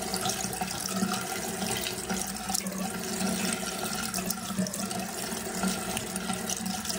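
Bathroom sink faucet running steadily, with hands being rinsed and rubbed in the stream of water.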